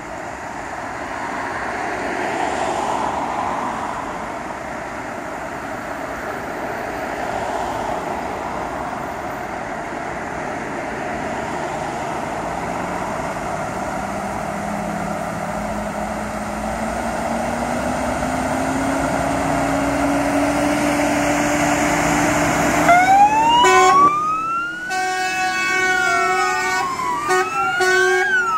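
Fire trucks' diesel engines running as they pull out, the engine note rising slowly. About 23 s in, electronic sirens start wailing in up-and-down sweeps, over repeated blasts of a pneumatic Martin horn.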